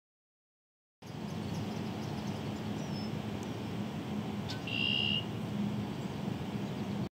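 About a second of silence, then outdoor woodland ambience: a steady background hiss with a bird calling briefly twice near the middle.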